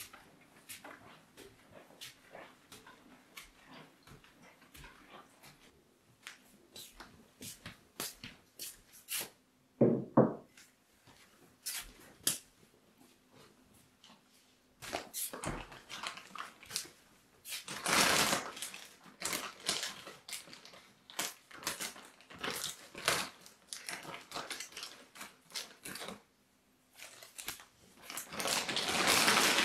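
Plastic bag crinkling and rustling as a wrapped block of clay is handled and opened, loudest near the end. Scattered small clicks and knocks run through, with one short loud sound about ten seconds in.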